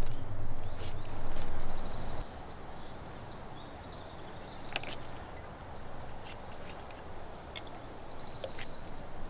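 Wind rumbling on the microphone for about two seconds, then steady outdoor background noise with a few faint clicks and chirps.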